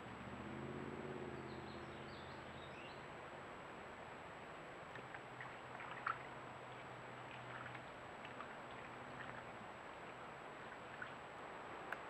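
Trail camera's outdoor sound: a steady hiss with a low distant hum that swells over the first few seconds and returns in the middle, a few faint high chirps early on, and scattered faint clicks, the sharpest about halfway through.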